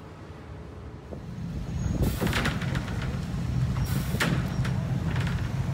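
Heavy engine running with a low rumble that grows louder about two seconds in, with sharp hissing bursts twice.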